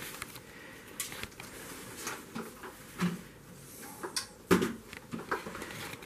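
Scattered light plastic knocks and clicks from the hose and wand of a Shark Lift-Away upright vacuum being handled. No motor is running.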